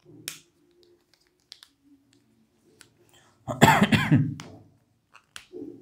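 A man coughs once, loudly, about three and a half seconds in. A few faint clicks come before and after it, from a whiteboard marker being handled.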